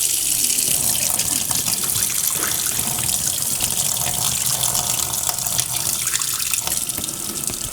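Hot water tap running, a steady hiss of water that eases slightly near the end. It is run with the cylinder's cold feed shut off, as a check for a split cylinder coil.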